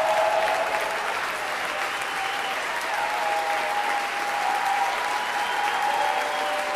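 Concert audience applauding and cheering: dense steady clapping with long held whoops rising above it.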